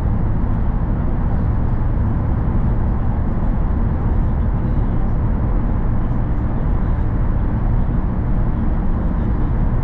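Steady low rumble of a shuttle bus's engine and tyres on the road at motorway speed, heard from inside the cabin.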